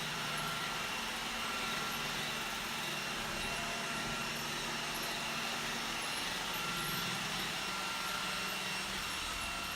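iRobot Roomba 980 robot vacuum running: a steady whir of its suction motor and brushes, with a faint hum and a couple of thin whining tones.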